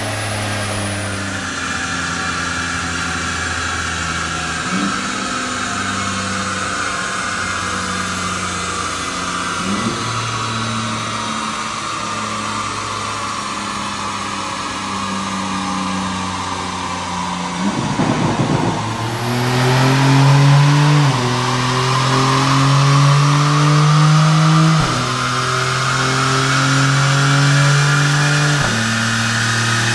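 BMW M2 G87's twin-turbo inline-six, breathing through an Akrapovic slip-on exhaust, running on a chassis dyno. The engine note holds steady and steps in pitch every few seconds, with a higher whine that slowly falls. After a brief break about two-thirds in, the engine gets louder and the whine climbs again.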